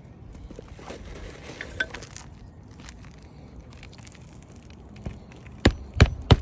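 Gritty scraping over old asphalt shingles, then a run of sharp clinking taps about three a second near the end as the worn shingles are worked loose.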